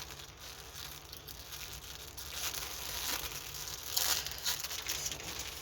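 Plastic packaging of a diamond painting kit crinkling and rustling as it is handled, with louder rustles about halfway through and again near the end.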